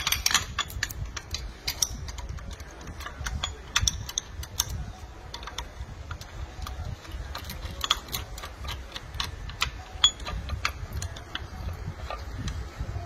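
Irregular light metallic clicks and clinks of bolts, spacers and an aluminium swing-tensioner bracket being handled and fitted by hand, over a low steady rumble.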